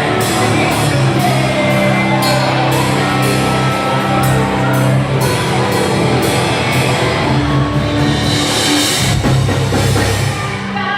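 Live heavy rock band playing: drum kit keeping a steady beat with regular cymbal strikes over sustained guitar and bass chords. A cymbal wash swells about eight seconds in.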